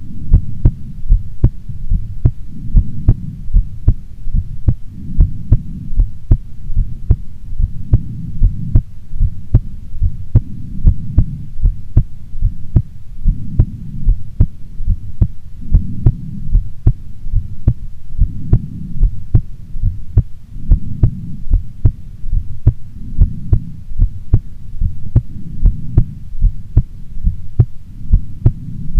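A woman's heartbeat, heard close up: a steady, regular run of soft low thuds. Under the beats a low rumble swells and fades about every two and a half seconds.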